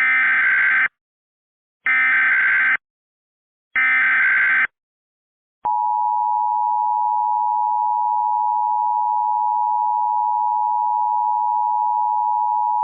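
Emergency Alert System SAME header: three short bursts of warbling digital data tones, each just under a second. After a pause, the steady two-tone EAS attention signal begins about five and a half seconds in.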